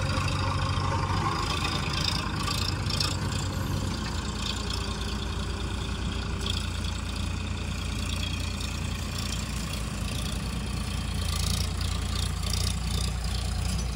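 Diesel engines running steadily: a JCB backhoe loader idling and a farm tractor pulling away with a trolley loaded with earth.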